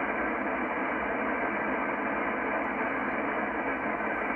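Steady shortwave static hiss from a Yaesu FTdx10 transceiver tuned in upper sideband mode, sweeping across the 19-metre band, with its sound cut off above the receiver's audio bandwidth.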